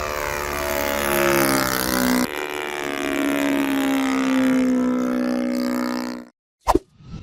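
An aircraft engine droning steadily, its pitch sliding slowly up and down. There is an abrupt edit about two seconds in, and the sound cuts off sharply near the end, followed by a short burst.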